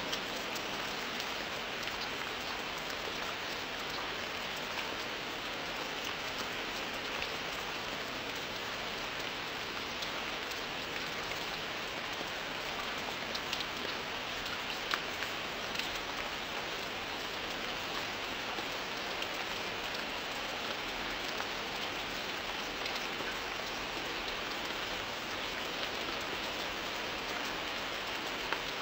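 Steady rain falling: an even hiss of rain on a surface, with a few sharper drop ticks scattered through it.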